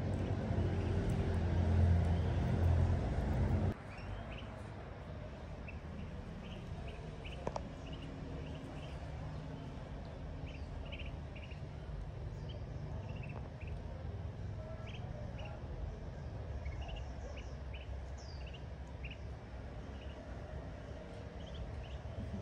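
Ducklings peeping: short high peeps, scattered and irregular, a few gliding down in pitch. For about the first four seconds a louder low rumble runs under them, then cuts off abruptly.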